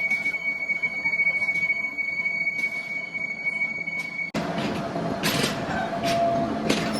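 A steady high-pitched metallic squeal with faint regular ticks, typical of metal being machined in a workshop. About four seconds in it cuts off abruptly, and louder, rougher machine noise follows.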